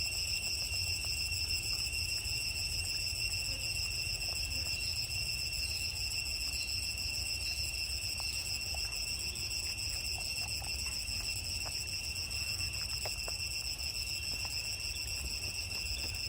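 Steady high-pitched insect drone with several overtones, unchanging throughout, over a low rumble and a few faint ticks.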